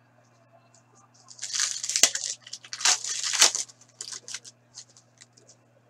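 A foil trading-card pack being torn open and crinkled: a crackling, rustling noise for about two seconds, followed by a few light ticks.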